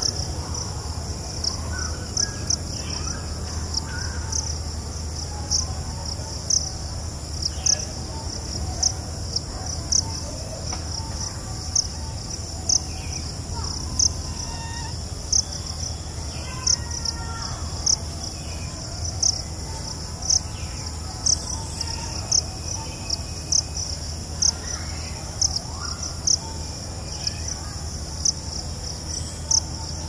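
Outdoor insect chorus: a steady high trill with a louder pulse about once a second, over a low rumble, with faint bird calls now and then.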